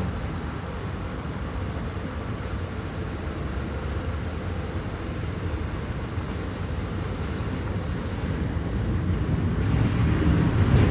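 Mercedes-Benz OF 1519 bus's diesel engine running under way, with steady engine and road noise. A faint high squeal fades out in the first second. The engine grows louder from about eight seconds in as it pulls harder.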